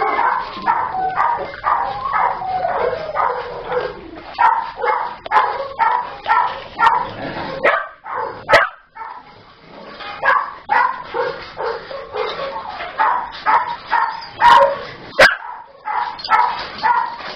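Small dogs barking over and over, about twice a second, with a short pause about halfway through.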